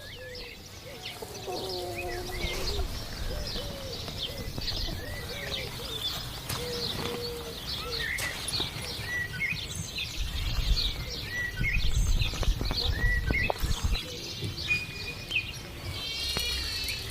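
Outdoor birdsong: many short chirps and whistles throughout, with lower, rounded repeated calls in the first half and a quick wavering trill near the end.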